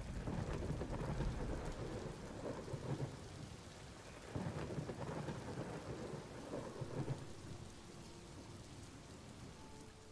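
Thunderstorm: steady rain with thunder rumbling in several rolling swells that fade toward the end.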